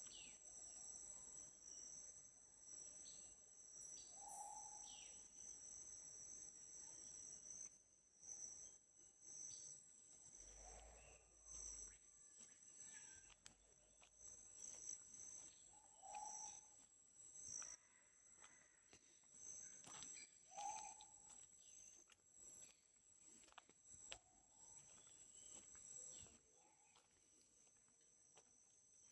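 Amazon rainforest insects calling steadily in two high-pitched tones, with a short lower-pitched call repeating every few seconds and occasional faint clicks.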